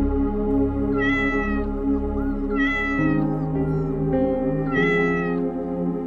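A kitten meowing three times, evenly spaced, each call about half a second long, over steady background music.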